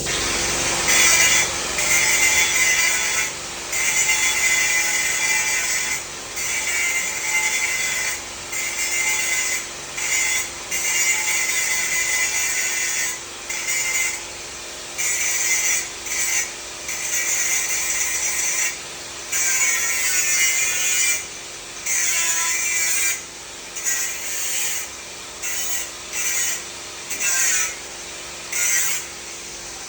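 Welding arc hissing and crackling in repeated bursts of one to two seconds, stopping and restarting with short breaks, as the weld is laid in stop-start runs.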